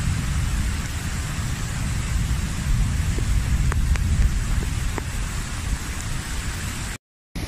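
Heavy rain falling steadily over a deep rumble, with a few sharp taps of drops about halfway through. The sound cuts out for a moment near the end.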